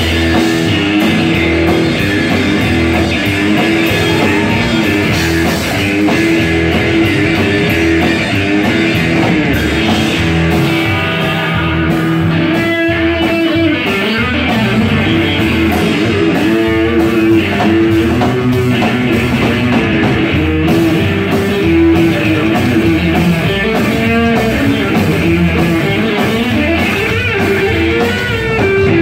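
Live band playing an instrumental passage: electric guitar over an upright double bass and a drum kit, loud and continuous.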